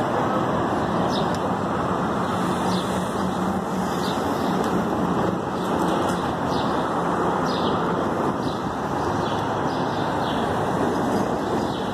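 Steady city road traffic noise, an even hiss with no single vehicle standing out. Faint light ticks come about once a second.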